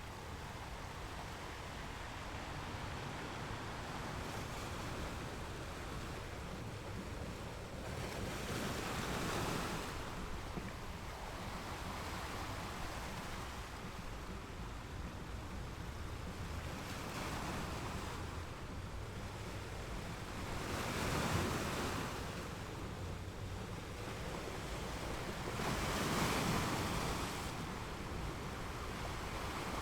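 Ocean waves breaking on a beach, a steady surf wash with a wave swelling and breaking every few seconds, four times in all, the last two the loudest.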